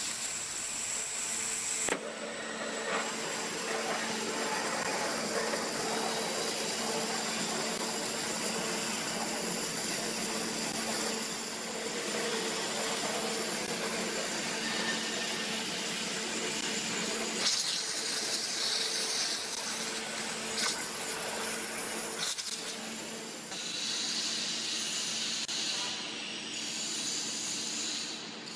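Five-axis waterjet cutting machine cutting ceramic: the high-pressure water jet gives a steady hiss, with a steady hum underneath.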